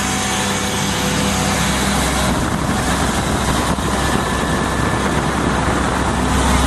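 Caterpillar diesel engine of an Ingersoll Rand portable air compressor running steadily: a constant deep hum under an even rush of noise.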